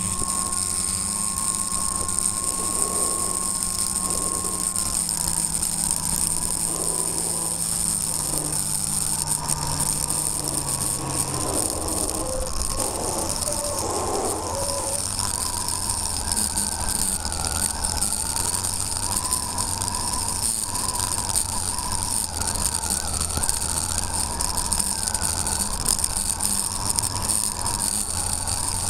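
Onboard sound of a radio-controlled Seawind model seaplane's motor and propeller running under power in flight: a steady high whine over a buzzing drone, with a lower tone that steps down in pitch over the first ten seconds or so.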